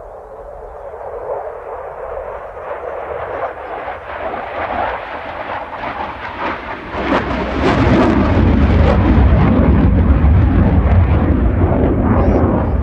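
JAS 39C Gripen fighter jet's single Volvo RM12 turbofan engine roaring on a display pass, building in loudness and becoming much louder about halfway through, with a deep rumble and crackle.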